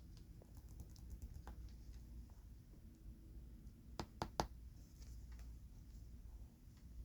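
Faint, light tapping and clicking from hands handling oversized Pokémon cards, with three sharp clicks in quick succession about four seconds in.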